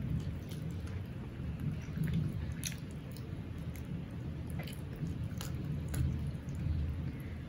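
Chewing and short wet mouth clicks of a man eating rice and curry by hand, over a steady low rumble of heavy rain.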